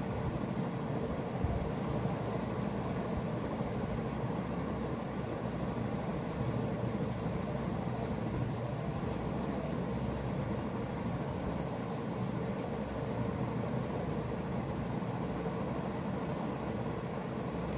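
Hands massaging oil into long hair and scalp: a steady, dense rubbing noise, with a constant hum behind it.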